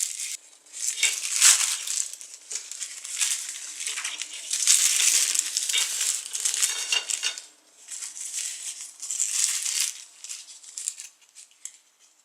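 Rustling and crinkling as a small toy parachute is taken out and handled, in several bursts, with a few light plastic clicks near the end.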